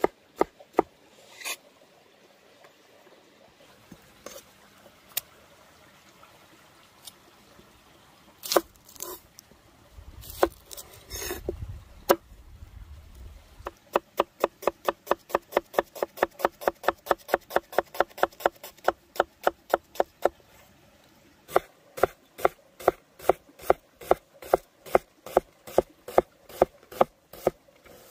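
A broad-bladed chef's knife striking a wooden cutting board: a few scattered knocks at first, then from about halfway fast, even chopping of onion, about four strokes a second, with a short break before a second run.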